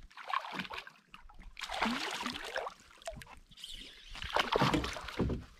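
A hooked fish thrashing and splashing at the surface beside a canoe, in three bursts of splashing a second or two apart.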